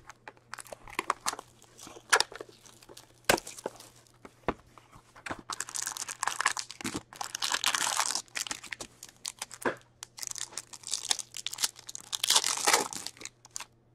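Plastic wrap being torn off and crinkled as a sealed Upper Deck Black Diamond hockey card box is opened, with scattered clicks and taps of cardboard being handled. The crinkling comes in two longer spells, one around the middle and one near the end.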